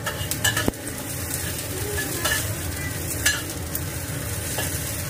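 Sliced shallots, garlic and lemongrass sizzling in hot oil in a wok while a metal spatula stirs them, scraping and clinking against the pan several times.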